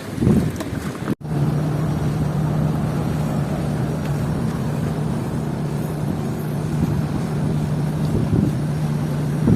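A steady, unchanging motor hum under rushing wind noise, starting abruptly about a second in.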